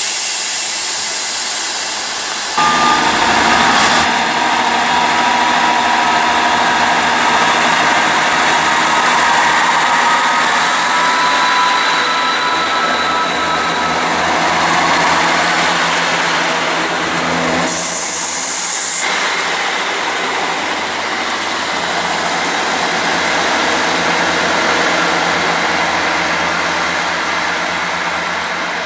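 Diesel passenger trains passing: engines running and wheels on rail, with a steady high whine through the middle. The sound changes abruptly several times as one clip gives way to the next.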